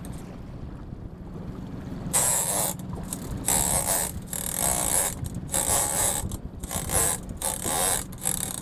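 Shimano Tiagra 30W big-game lever-drag reel with its ratchet clicker on, clicking in about seven short bursts from about two seconds in as the spool turns under a hooked bluefin tuna.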